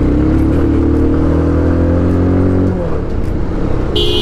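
Motorcycle engine pulling through city traffic, its pitch rising slightly, then the engine note drops off about two and a half seconds in. A vehicle horn sounds briefly near the end.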